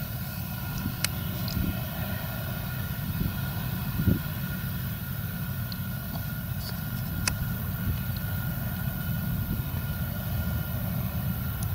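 Claas Lexion 770 combine harvester threshing rapeseed: a steady engine and threshing drone with a low rumble and a steady high hum over it, a few faint clicks and a single thump about four seconds in.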